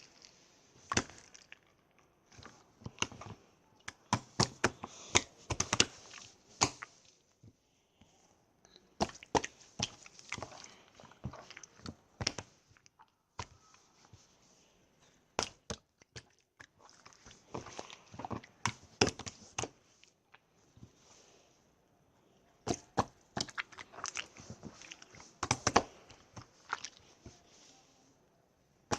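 Clear slime being squeezed and pressed by hand, making irregular bursts of wet clicks and pops with short pauses between them.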